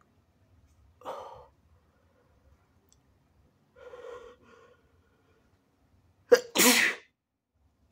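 A person sneezing: two short voiced sounds build up, one about a second in and one around four seconds, then a single loud sneeze near the end, a sharp burst followed at once by a longer blast.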